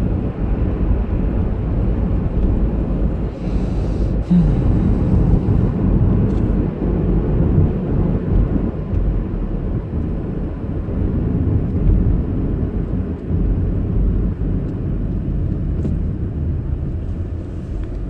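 Steady low road and engine rumble of a car being driven, heard from inside its cabin.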